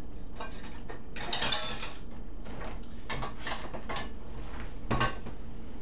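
Dishes and a small metal saucepan clattering in a dishwasher as it is rummaged through: a handful of separate clinks and knocks.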